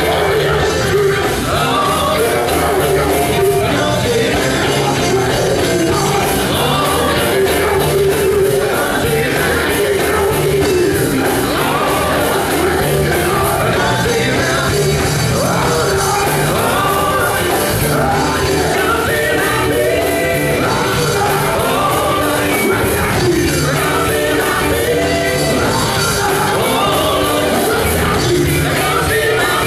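A male gospel vocal group sings live with a band of drums and bass, amplified through a PA in a large hall.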